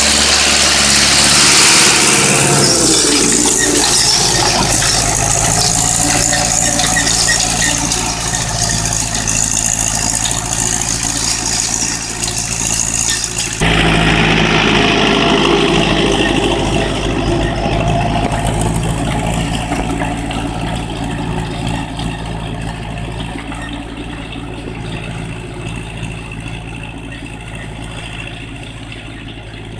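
Ursus C-360 tractor's four-cylinder diesel engine running steadily under load while pulling a mounted plough through stubble. The sound jumps abruptly about halfway through, then fades as the tractor draws away near the end.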